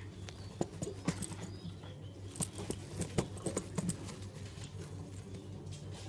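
Scattered light clicks and taps from Shami pigeons shifting and stepping about, densest between about half a second and four seconds in, over a low steady hum.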